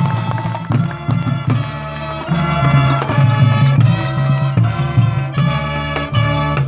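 Marching band playing its field show: held chords from the winds changing every second or so, with drum strikes between them.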